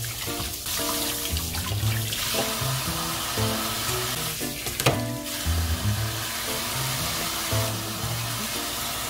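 Kitchen faucet spray running steadily into a stainless-steel sink as fish are rinsed under it, with background music playing over it.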